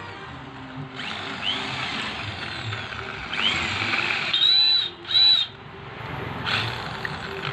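Power drill driving a hole saw through steel: a grinding cut in spurts, with high screeching squeals from the teeth biting the metal and a loud steady shriek in the middle.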